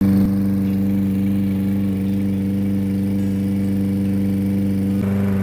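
Walk-behind gas lawn mower engine running steadily at a constant speed.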